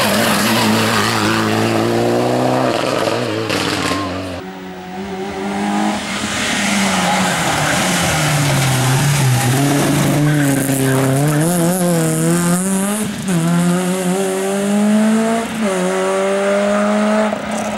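Rally car engine under hard acceleration, its pitch climbing and dropping back again and again as it shifts up through the gears, with a wavering stretch in the middle where the revs rise and fall quickly.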